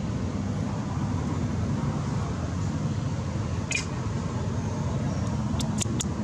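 Steady low outdoor rumble, with one brief high chirp about halfway through and three sharp clicks near the end.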